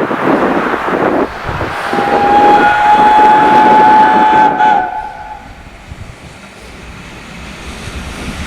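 Steam locomotive 60163 Tornado, a Peppercorn A1 4-6-2 Pacific, working hard with rapid exhaust beats, sounding one long steam whistle about two seconds in that lasts roughly three seconds. After the whistle the train sound drops away sharply and stays much quieter.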